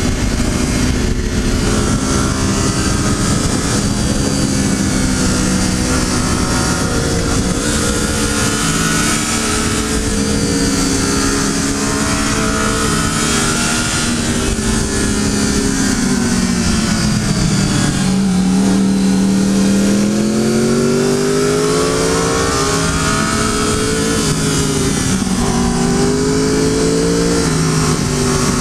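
Triumph Daytona 675's three-cylinder engine revving up and down as the bike accelerates and slows through a series of bends, its pitch climbing and falling several times and dipping lowest about two-thirds of the way through. Steady wind and road rush runs under it on the bike-mounted microphone.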